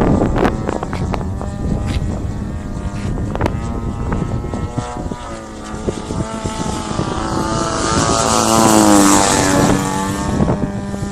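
Radio-controlled Extra 330S model airplane's motor and propeller buzzing in flight, its pitch wavering as it manoeuvres, then growing louder on a close pass about eight to nine seconds in and dropping in pitch as it moves away. Wind rumbles on the microphone, strongest at the start.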